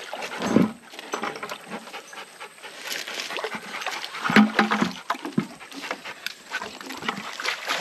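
A dog panting while it wades in the creek water, over scattered clicks and rustles, with a short low-pitched sound, the loudest moment, about four and a half seconds in.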